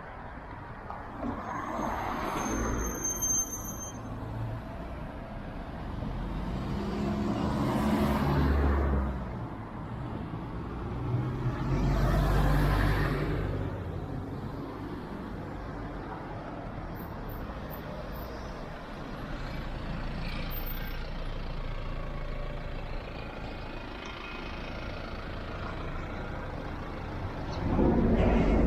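Road traffic passing on a suburban street: three vehicles go by one after another in the first half, each swelling and fading, with a brief high-pitched squeal about two to three seconds in. A steadier traffic background follows, growing louder near the end.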